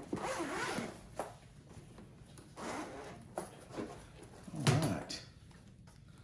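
Packaging being handled and opened by hand: irregular rustling and scraping in bursts, with a couple of sharp clicks. A short voice-like murmur comes about four and a half seconds in.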